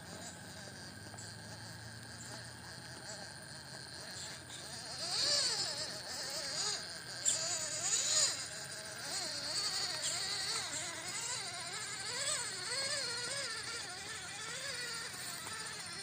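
Electric motor and gearbox of an MN99S RC crawler whining. The pitch rises and falls again and again as the throttle is worked while it crawls over slippery ground, starting a few seconds in.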